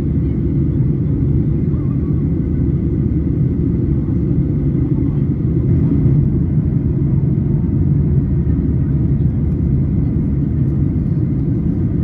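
Steady low noise of a jet airliner in flight, engines and airflow heard inside the cabin from a window seat over the wing of a Boeing 737.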